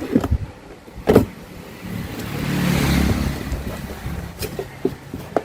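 Sharp clicks and knocks of a parcel being handled and opened, then a passing motor vehicle whose engine sound swells and fades, loudest about three seconds in.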